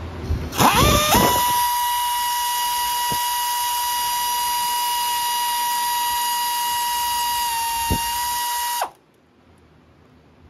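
Handheld electric power tool motor spinning up with a quick rising whine, then running at a steady high whine for about eight seconds before cutting off suddenly.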